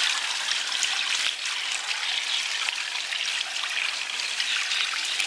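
Water poured steadily from a plastic bucket into an engine-driven water pump, priming the pump before it is started.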